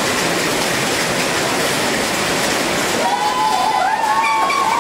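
Crowd cheering, a steady dense roar, as a gymnastics team holds its final pose. About three seconds in, a wavering high-pitched tone joins the cheering.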